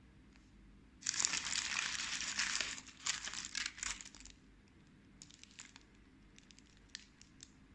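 Paper food wrapper crinkling and rustling for about three seconds, then a few scattered light crackles.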